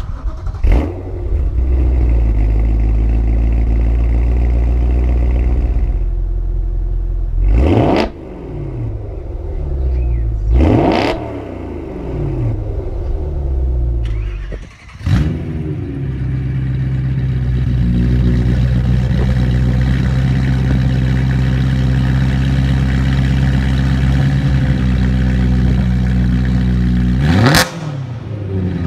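BMW E92 M3's V8 through a modified exhaust, idling steadily and blipped in quick revs that rise and fall sharply, about eight and eleven seconds in and again near the end.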